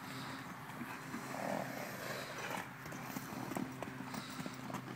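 Hoofbeats of horses cantering loose on a soft dirt paddock: irregular thuds. A steady low hum runs underneath.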